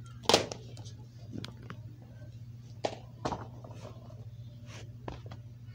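Handling noise from plastic DVD cases and a handheld camera: a handful of scattered clicks and soft knocks, the loudest about a third of a second in, over a steady low hum.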